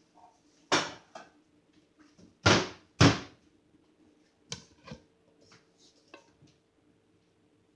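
Kitchen handling noises: about half a dozen separate knocks and clunks, two louder ones close together a little before the middle, over a faint steady hum.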